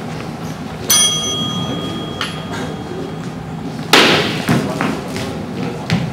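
A bell struck about a second in and ringing on, struck again a little over a second later. Then a sharp clash of practice longswords meeting, followed by a few lighter knocks.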